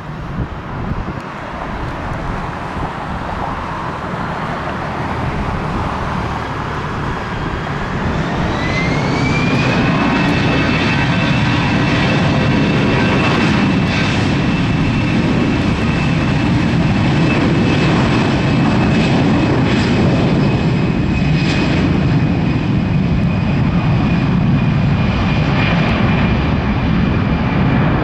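Airbus A319 jet engines running on the ground, growing louder as a whine rises in pitch about eight seconds in, then holding steady over a strong rumble as thrust is added.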